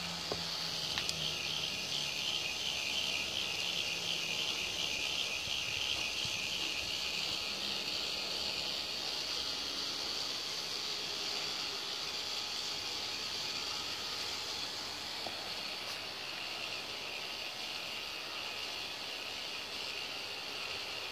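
K'NEX ball machine running: its small electric motors and plastic gears give off a steady high whine, with a faint fast pulsing during the first several seconds.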